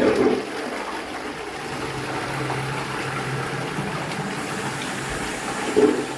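Toilet being flushed as a flush test after unblocking: a sudden rush of water that then runs on steadily as the bowl empties down the cleared drain without pushing up.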